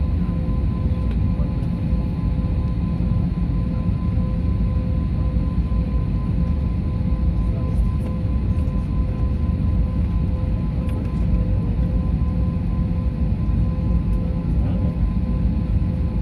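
Steady low rumble of jet aircraft on an airport apron, heard through a window, with a constant hum on two steady tones.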